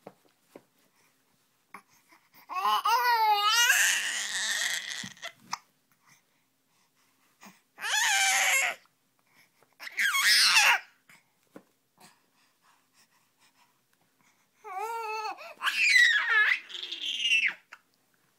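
A baby vocalizing in four high-pitched bursts of babbling, the first and last wavering up and down in pitch, with faint short hiccups in the quiet gaps between them.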